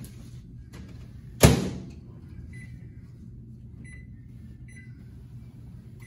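Countertop microwave oven door shut with a sharp bang about one and a half seconds in, ringing briefly, followed by three short beeps from its keypad as the cooking time is entered and started.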